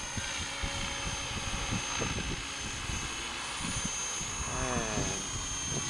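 Radio-controlled helicopter hovering overhead: a steady high whine from its motor and rotor, with gusts of wind rumbling on the microphone.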